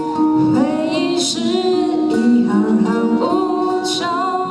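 Acoustic guitars strummed together by a group, accompanying a female voice singing a sustained, wavering melody line.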